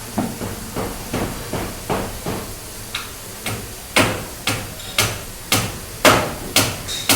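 Hammering on a building site: a steady run of sharp blows, about two a second, becoming louder about four seconds in.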